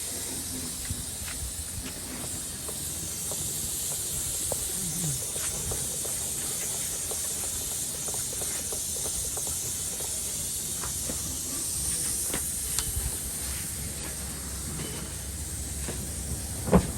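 Steady hiss of compressed air rushing out at a tubeless truck tyre, with a few faint knocks and a sharp knock near the end.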